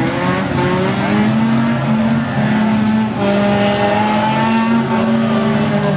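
Several banger-racing cars' engines running hard at once, their pitches shifting up and down as the drivers accelerate and lift off.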